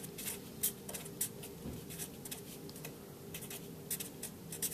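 Marker pen scratching across paper in a quick run of short, irregular strokes as words are handwritten.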